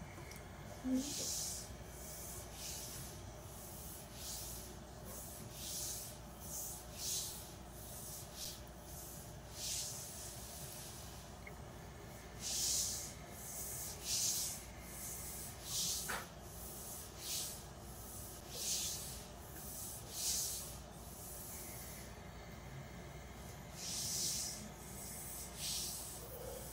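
A person breathing in and out hard and fast, about one breath a second, with a short pause a little past the middle: steam inhalation over a pot of boiling ginger and lemon water.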